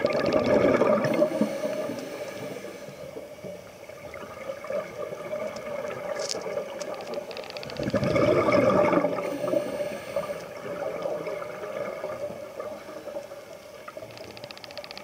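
Scuba diver breathing through a regulator underwater: a hissing inhale, then a loud gurgling rush of exhaled bubbles, once at the start and again about eight seconds in.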